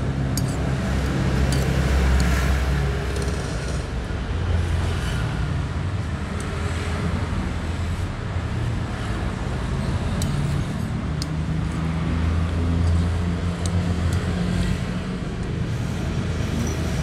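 Road traffic going by, a low engine hum that swells and fades several times, with a few light clicks of a metal spoon against a ceramic bowl.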